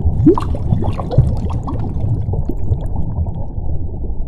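Underwater bubbling sound effect: a dense low rush of bubbles with many short upward-gliding blips, slowly getting quieter.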